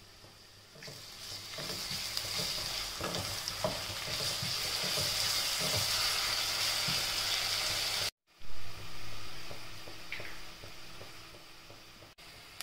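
Onions and ginger-garlic paste sizzling in hot oil and ghee in a stainless-steel pressure cooker, with a spatula stirring and scraping the pan. The sizzle cuts out briefly about eight seconds in and comes back fainter.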